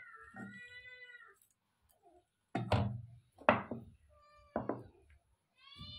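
A cat meowing several times: a long meow at the start, a fainter one just after the middle and another near the end. In between come three sharp knocks, the loudest sounds here.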